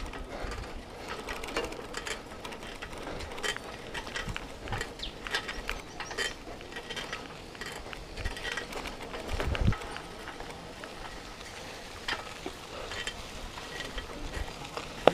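Bicycle rattling along a rough track: scattered irregular clicks and rattles, with a short gust of wind on the microphone about nine and a half seconds in.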